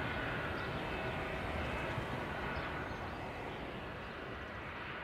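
Boeing C-135FR Stratotanker's four CFM56 turbofans at take-off power as it climbs away just after lift-off: a steady jet rumble with a thin whine on top, slowly fading over the second half.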